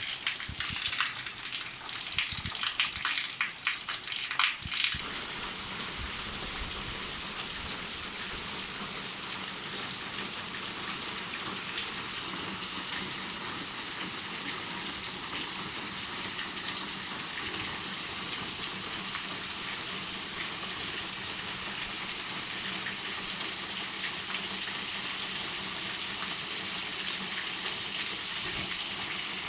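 Steady rain falling. For the first few seconds loud, irregular drops and splashes stand out; after that it settles into an even, continuous hiss of rain.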